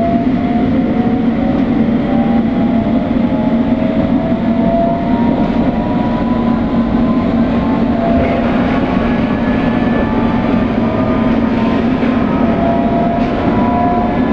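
A London Underground S Stock train heard from inside the carriage while it runs, a steady rumble under several electric traction whines that slowly rise in pitch as the train gathers speed.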